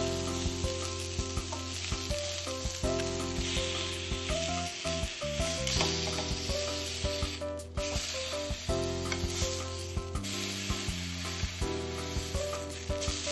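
Ostrich fillet searing in hot oil in a frying pan, sizzling steadily, with metal tongs clicking against the pan as the meat is turned. Background music plays underneath.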